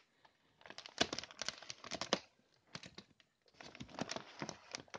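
Large plastic sack of dry cat food being handled, its plastic crinkling and rustling in two spells: about a second in, and again from about three and a half seconds in.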